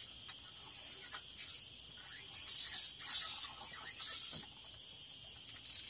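Fishing reel being cranked in a few short scratchy bursts, reeling in a hooked catch that is fighting the line. Behind it runs a steady high buzz of insects.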